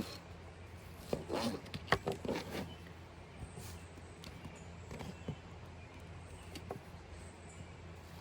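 A knife slicing fresh peaches, with irregular sharp taps and knocks as the blade cuts through, over a steady low hum.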